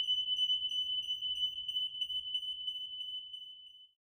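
A single steady, high-pitched electronic tone held on, slowly fading and cutting off just before the end.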